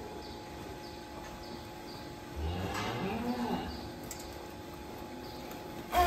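A cow mooing once, a call of about a second and a half that rises and falls in pitch, starting about two seconds in, over a faint steady hum. A sharp knock right at the end is the loudest sound.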